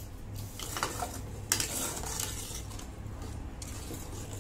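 Metal ladle stirring watery gravy in a metal pot, with one sharp clink of the ladle against the pot about a second and a half in.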